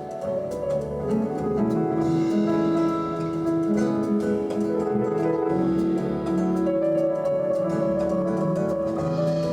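Jazz recording played back over TAD Compact Evolution One TX loudspeakers: an instrumental passage with piano over a deep, moving bass line.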